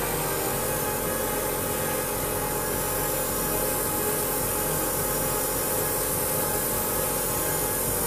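Airbrush spraying a thin first coat of acrylic flesh-tone paint onto a test spoon: a steady hiss of air and paint, with a steady hum underneath.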